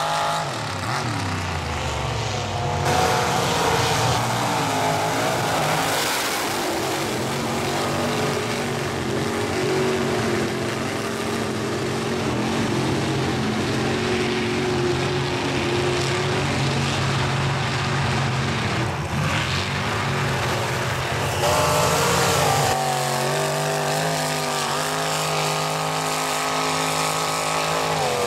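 Engines of lifted mud-bogging trucks revving and running under load as they churn through deep mud, the pitch climbing and falling.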